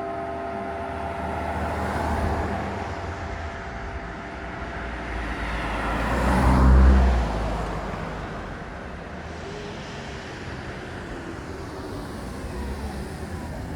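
A road vehicle drives past, swelling to its loudest about halfway through and then fading, with a smaller swell of road noise a couple of seconds in. The ring of a church bell's last stroke dies away at the very start.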